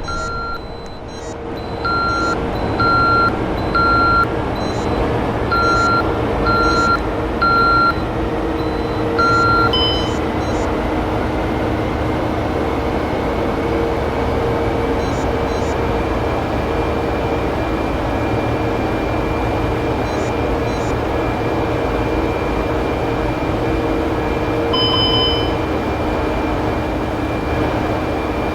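Wheelock E70 fire-alarm speakers sounding the temporal-three evacuation tone: two groups of three even, high beeps, then a single beep, after which the tone stops about ten seconds in. A steady low drone with a hum carries on underneath and afterwards.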